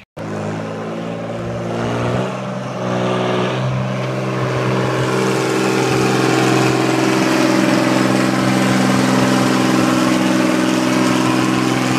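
Heavy diesel engine running, growing louder over the first several seconds and then holding steady at a constant pitch.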